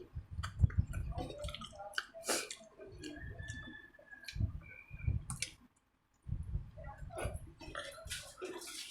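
Close-miked eating sounds of fish and rice: wet chewing, lip smacks and mouth clicks, with a brief drop-out a little past halfway.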